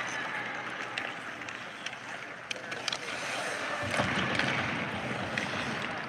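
Ice hockey skating drill: skate blades scraping and carving across the ice, with scattered sharp clacks of sticks hitting pucks. The scraping swells louder about four seconds in.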